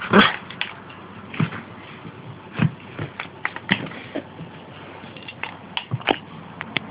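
Small dog leaping and lunging about on a carpeted floor: a string of short, irregular thumps and clicks, the loudest right at the start.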